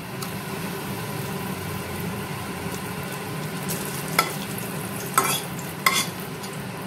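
Whole spices (cumin seeds, dried red chillies and a bay leaf) sizzling steadily in hot mustard oil in a kadai for a tempering. A steel spatula clicks against the pan three times in the second half.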